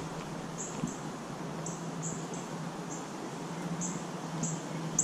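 Insects: short high chirps repeating irregularly about twice a second over a low, steady hum.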